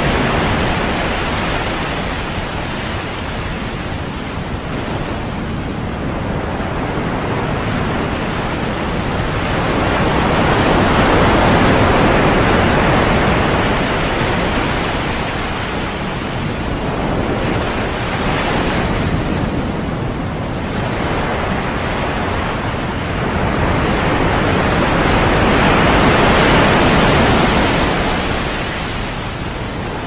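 Calm sea: waves breaking and washing in, the surf swelling and fading in slow surges several seconds long.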